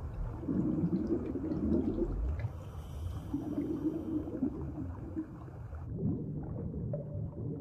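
Low, muffled watery rumble with gurgling, swelling twice, like the film's underwater sound effects.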